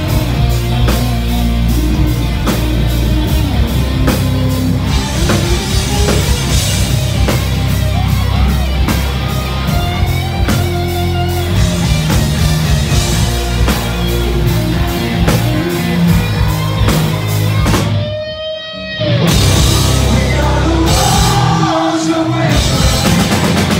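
Rock band playing live and loud: distorted electric guitar, electric bass and drum kit. About eighteen seconds in, the band breaks off for a moment and a single held note sounds alone, then the full band crashes back in.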